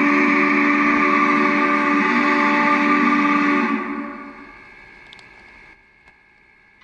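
MTH PS3 sound system in a One Gauge Big Boy model playing a recorded steam locomotive whistle through its speaker: one long, steady chord of several tones that ends about four seconds in and fades away.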